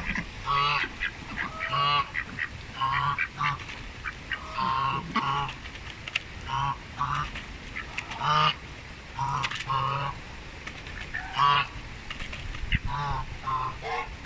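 Domestic white ducks and a brown domestic goose calling: short honking quacks repeated about once a second, often in pairs.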